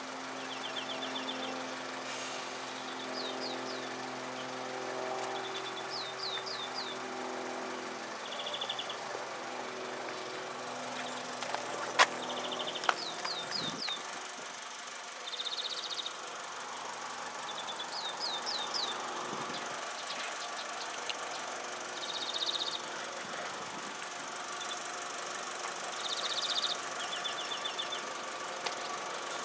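Birds chirping and trilling on and off, over the low steady running of a nearby vehicle engine that fades after about eight seconds. A single sharp click sounds about twelve seconds in.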